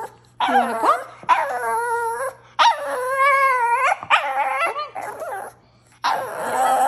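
Shih tzu "talking": a string of about five drawn-out, wavering whine-yowls whose pitch slides up and down, with short gaps between them and a longer pause before the last one.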